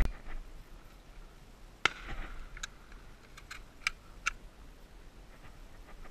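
Two shotgun shots about two seconds apart, the first at the very start, followed by several short, light clicks.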